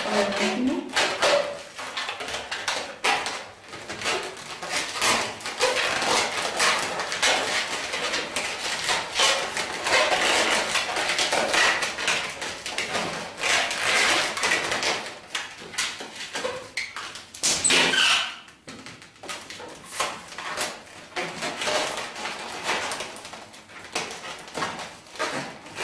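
Inflated latex 260 modelling balloons squeaking and rubbing against each other as they are twisted and worked by hand, a busy run of short squeaks and scrapes.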